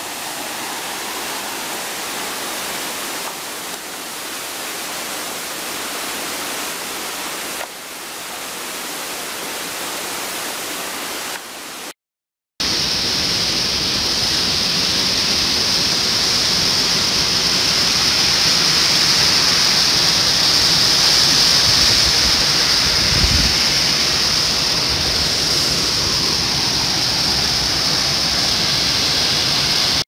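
Water of a small waterfall rushing and splashing down a rock face, a steady noise. It breaks off for a moment about twelve seconds in and comes back louder, with a brighter hiss.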